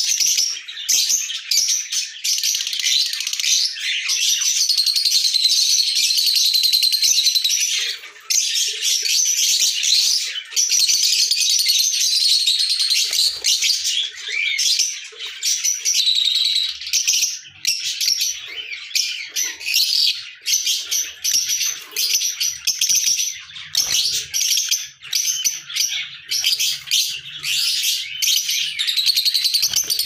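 Lovebirds chattering: a dense, continuous run of high-pitched chirps and squeaks, dipping briefly about eight seconds in.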